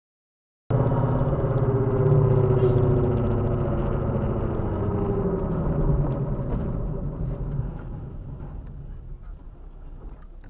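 Engine and road noise of a car driving, heard from inside the cabin through a dashcam. It cuts in abruptly about a second in, then dies down gradually over the last few seconds.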